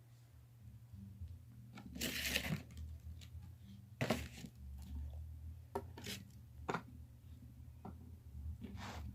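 Handling noise: a brief rustle about two seconds in, then a series of small clicks and taps as objects are moved and picked up, over a steady low hum.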